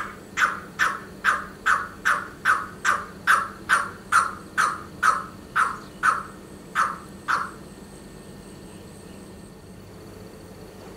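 Male pheasant coucal calling: a run of about seventeen short notes, each falling in pitch, at roughly two and a half a second. The run slows slightly and stops about seven seconds in.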